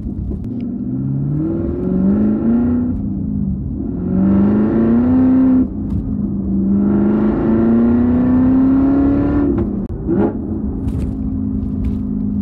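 Chevrolet Camaro ZL1's supercharged 6.2-litre V8 through a Corsa exhaust, accelerating hard through the gears. The note climbs three times, with a short break at each upshift, then settles to a steady cruise near the end.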